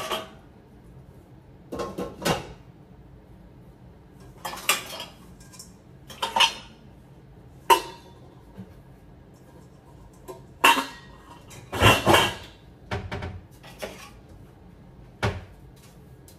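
Dishes and stainless steel pots clinking and clattering as they are lifted out of a dishwasher's racks and set down, about a dozen separate clatters with pauses between, some ringing briefly like metal.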